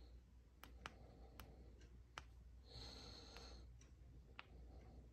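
Near silence broken by a few faint, sharp clicks of mini LED headlamp switch buttons being pressed, with a brief faint high-pitched sound about three seconds in.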